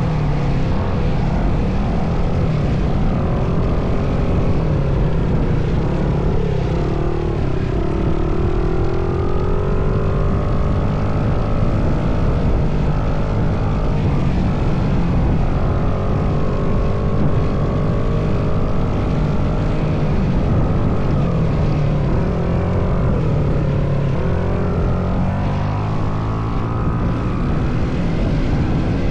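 Kawasaki KX250 dirt bike engine running under way, its revs rising and falling over and over.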